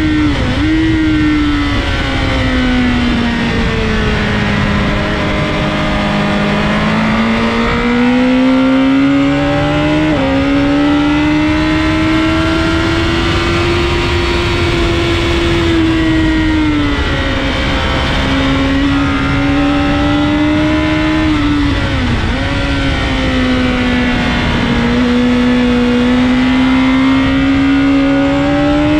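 Sport motorcycle engine heard onboard at track speed over heavy wind noise, its pitch sinking and climbing with the revs through the corners. Several quick jumps in pitch mark gear changes, including downshifts.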